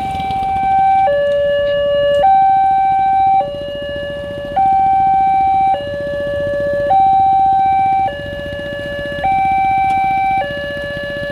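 Automatic railway level-crossing warning system sounding its slow-tempo two-tone alarm through a TOA loudspeaker: a high and a low tone alternating evenly, each held a little over a second, the high tone louder. It warns road users of an approaching train.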